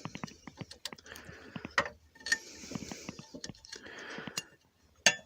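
Many small sharp clicks mixed with patches of scraping, from a multi-tool being worked on screws and metal fittings.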